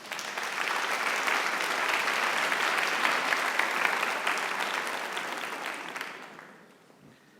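Audience applauding in a large hall, a dense clatter of many hands that swells, holds for about six seconds, then dies away.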